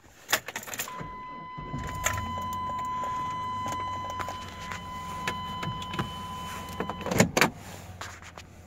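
Inside a Chevrolet pickup cab: a click, then a steady electronic warning tone that holds for about six seconds over a low hum. The tone cuts off and a couple of loud knocks follow.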